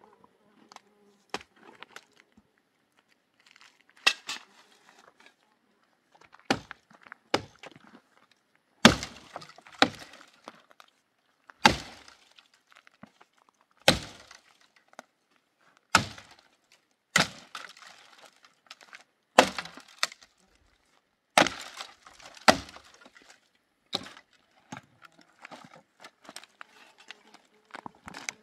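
Dry firewood being broken up: about fifteen sharp cracks, one every second or two, some followed by a brief splintering crackle.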